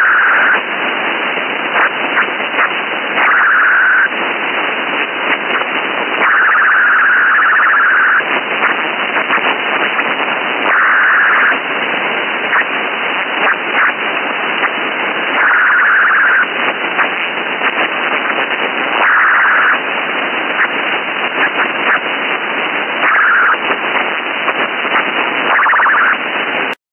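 Sci-fi radio static: a dense crackling hiss that surges louder and brighter for about a second every few seconds, then cuts off abruptly near the end.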